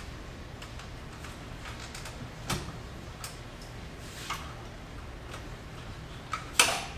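Hunter alignment wheel clamp being fitted to a truck wheel: scattered light clicks and taps, with a sharper, louder metal click near the end, over a low steady shop hum.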